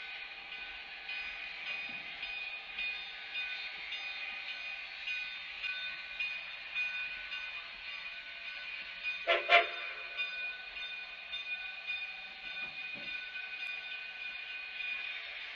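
Steady hiss as a narrow-gauge steam train rolls past. About halfway through comes a brief, loud double blast, a short toot of the K36 steam locomotive's whistle.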